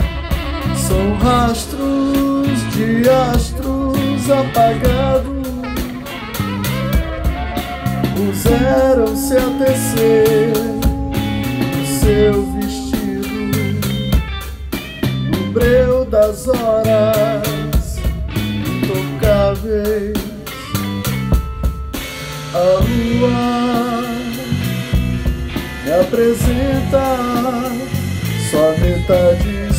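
A band playing: electric guitar, bass and drum kit, with a lead melody that bends and wavers in pitch over a steady beat.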